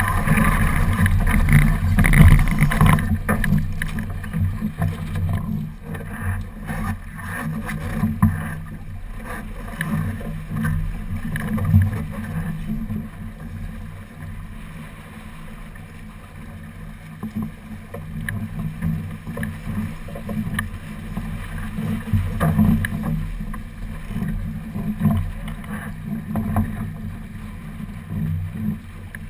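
Water rushing and slapping along the hull of a sailing keelboat under way, heard muffled, louder in the first few seconds, with occasional short knocks.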